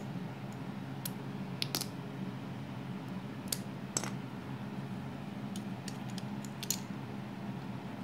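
Plastic Lego bricks clicking and clattering against each other and the wooden floor as a hand picks through loose pieces: a scattering of sharp clicks, several close together near the middle, over a steady low hum.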